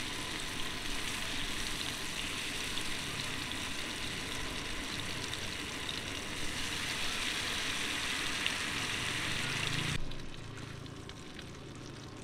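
Food frying in a hot pan: a steady sizzling hiss with small crackles, which stops abruptly about ten seconds in and gives way to a quieter background.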